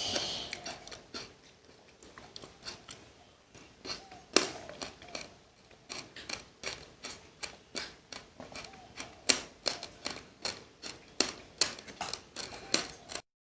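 Close-up chewing and crunching of seeds, sesame or passion fruit, as small sharp crackles at an irregular pace of several a second, with one louder crunch about four seconds in and a brief cut to silence near the end.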